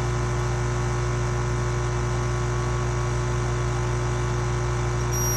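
A steady low electrical-sounding hum with a background hiss. Right at the end, a short, thin, high-pitched squeak begins, slightly falling in pitch: the tiny 'snore' of a sleeping hummingbird.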